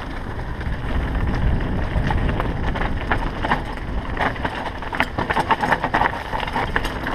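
Full-suspension downhill mountain bike rattling at speed over a rocky dirt singletrack: tyres running over loose stones, with frequent sharp knocks and clatter from the chain and frame. Wind buffets the helmet-mounted camera's microphone as a steady low rumble.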